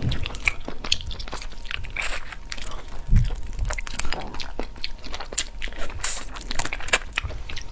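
Close-miked eating of cooked mantis shrimp: irregular crunchy bites and chewing with many small sharp crackles, and a dull low thump about three seconds in.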